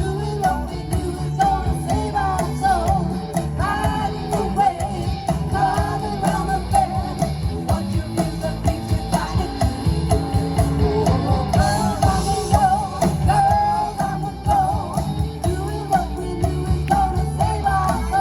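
Live rock band playing a song, with singing over guitar, bass and drums.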